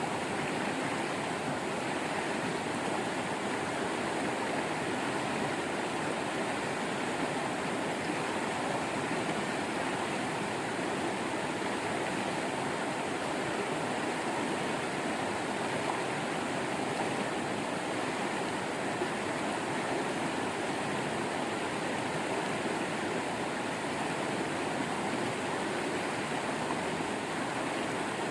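Waterfall water running steadily, an even unbroken flow with no distinct splashes or changes.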